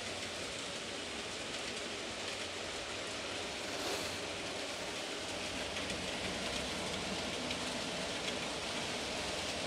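N gauge model trains running on the layout: a steady hissing rumble of small wheels rolling along the track, with a brief louder swell about four seconds in.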